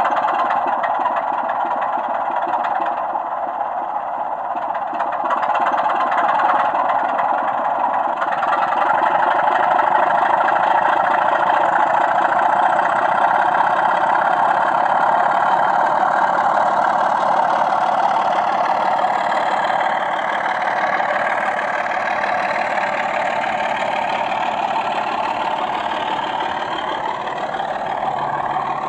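Diesel engine sound from a DCC sound decoder in a model Class 24 locomotive, running steadily as the loco pulls away with its train. The engine note grows louder about five seconds in, and a rising whine comes in around two-thirds of the way through.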